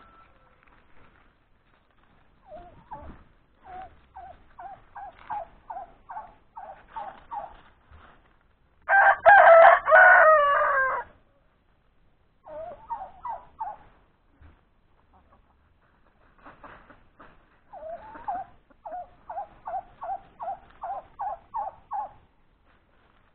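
Chickens clucking in runs of short, quick notes, about three a second, in three bouts. A rooster crows once, loudly, about nine seconds in.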